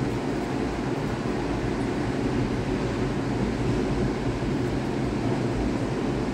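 Steady low roar of heavy surf breaking on the beach, with no distinct single crash.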